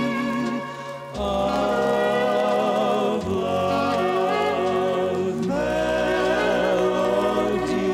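Background music with singing: long held sung notes with vibrato over a low steady accompaniment, the phrase changing about every two seconds.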